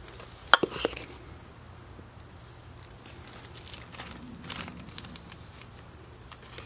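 Crickets chirping steadily in a pulsing high trill. A few sharp clicks and knocks come about half a second to a second in, the loudest sounds, with a brief rustle and lighter clicks around four and a half seconds, as a small bowl and a plastic zip-top bag are handled.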